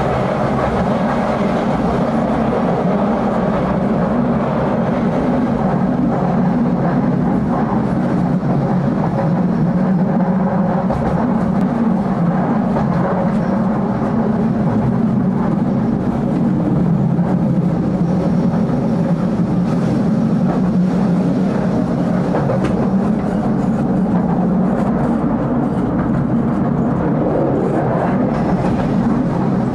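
Tram running along ballasted track, heard from the driver's cab: a steady rumble of wheels on rails and running gear, with faint clicks here and there.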